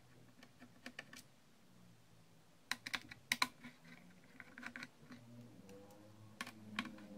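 Scattered small metallic clicks and taps of a screwdriver and small screws on a laptop's hard-disk bracket as the screws holding the hard disk are undone, in several short bursts with the loudest cluster a little before the middle.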